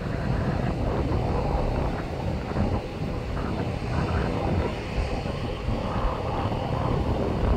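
Boeing 737-800's CFM56 jet engines running at high thrust for takeoff, heard from a distance as a steady low rumble, with wind buffeting the microphone.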